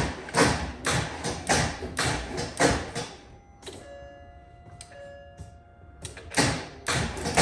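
Starter cranking the M156 6.2-litre V8 without it catching, a rhythmic pulsing about twice a second: the hard start the engine suffers, worst when cold. The cranking stops about three seconds in, an electronic chime sounds, and cranking resumes about six seconds in.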